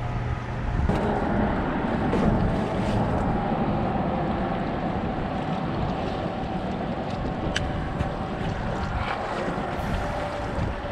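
A steady engine drone with a constant hum, mixed with wind on the microphone, plus a few faint ticks.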